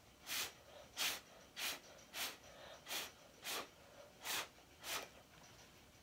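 Eight short, sharp puffs of breath blown through a drinking straw onto wet acrylic paint, in a steady rhythm of roughly one and a half puffs a second.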